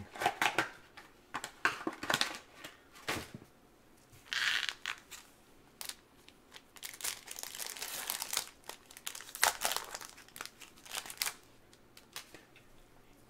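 Panini Select football card pack wrappers crinkling and tearing as gloved hands rip the packs open and handle them, in a string of short crackly rustles with one longer tearing rasp about four seconds in. The rustling dies down near the end.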